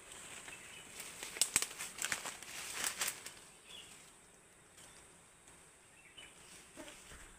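Leaves and twigs rustling and crackling, with a busy run of sharp crackles in the first half, then settling to quieter rustling.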